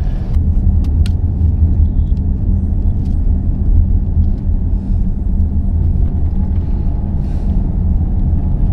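Steady low rumble of road and engine noise heard inside a moving car's cabin, with a couple of faint clicks about a second in.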